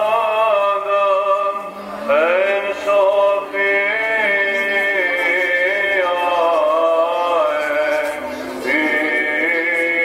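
A solo male voice chanting a slow melody in long held notes that glide from one pitch to the next, in the manner of Greek Orthodox church chant.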